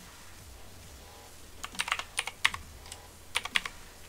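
Computer keyboard typing: two short bursts of keystrokes, the first starting about one and a half seconds in and a second shorter one near the end.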